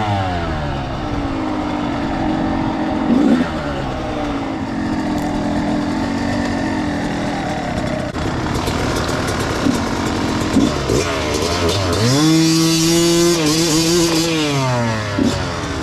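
Dirt bike engine running on a trail ride. About twelve seconds in it revs up, holds high for a couple of seconds, then drops back off.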